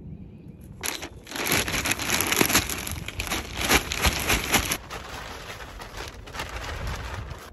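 Potting soil pouring from a plastic bag into a plastic shop-vac canister, the bag crinkling and the soil pattering in. It starts about a second in, is loudest for about four seconds, then settles to a quieter rustle.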